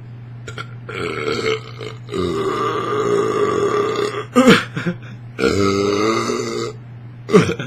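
A man belching loudly and repeatedly after chugging carbonated Diet Coke: two long, drawn-out burps and several shorter, sharp ones as the gas comes up.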